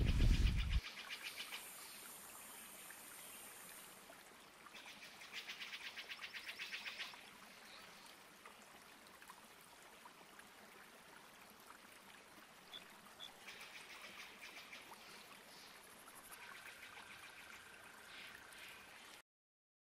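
Forest ambience: animal calls in rapid pulsing trills and thin high chirps over a faint hiss, after a low rumble in the first second. It cuts off suddenly near the end.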